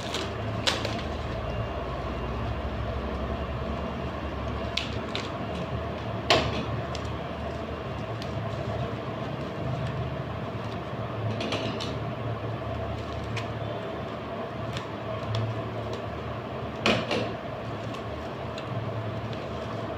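Occasional short clicks and knocks of a parcel and its contents being handled, over a steady background hum.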